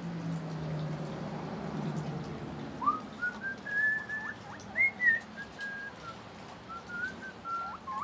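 Guinea pig wheeking: a rapid run of short, high whistling calls starting about three seconds in, many notes ending in a quick drop in pitch. A low hum fades out during the first couple of seconds.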